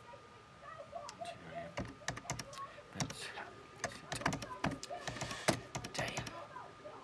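Computer keyboard being typed on, its keys clicking in irregular runs of keystrokes.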